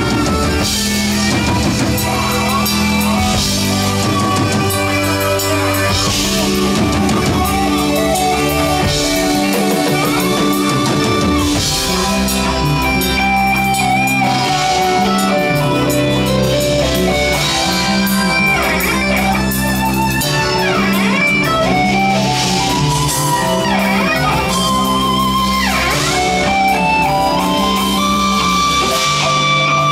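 A live rock band playing. An electric guitar leads with bent, sliding notes over sustained bass notes and a drum kit.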